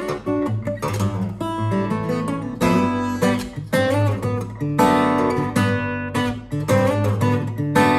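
Martin OM-21 steel-string acoustic guitar played fingerstyle in dropped D tuning: a percussive instrumental with a running low bass line under plucked melody notes, and many sharp, slapped attacks.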